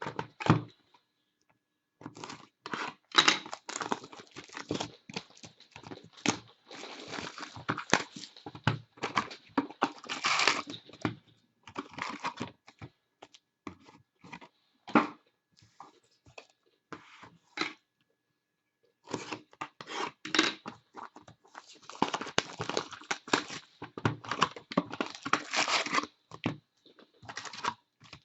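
A sealed trading-card box being opened by hand: its plastic shrink wrap and cardboard are torn and crinkled in irregular bursts of crackling, with a short pause about two-thirds of the way through.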